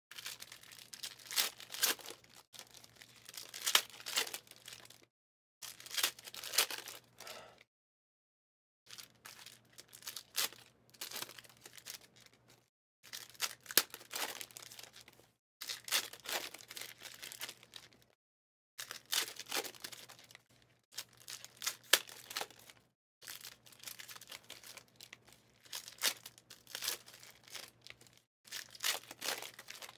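Wrappers of 2023 Legacy football card packs being torn open and crinkled, with cards handled and slid against each other. It comes in crackling stretches of a few seconds, broken by short dead-silent gaps.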